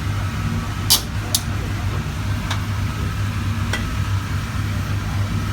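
Refrigerator compressor running with a steady low hum. A few short sharp ticks come over it, twice in the first second and a half, then about two and a half and nearly four seconds in.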